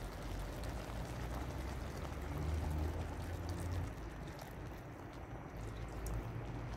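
Water poured from a plastic measuring jug into a pot of simmering chicken stew: a short pour of about 50 ml, louder around the middle.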